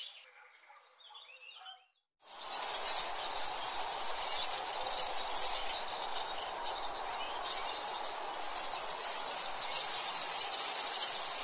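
Faint bird chirps fade out. About two seconds in, a dense, steady, high-pitched insect chorus starts and keeps on without a break.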